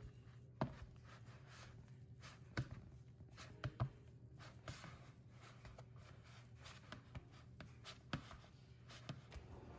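Silicone spatula stirring stiff bread dough in a plastic mixing bowl: faint scraping with scattered knocks of the spatula against the bowl, the loudest a quick pair about three and a half seconds in.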